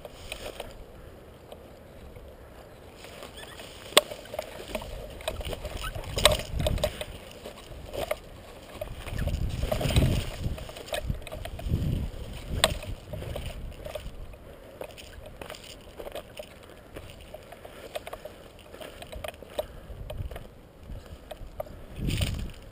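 Rustling and low rumbling handling noise on a body-worn GoPro's microphone as the player moves, with a few sharp clicks or knocks, the clearest about four and six seconds in.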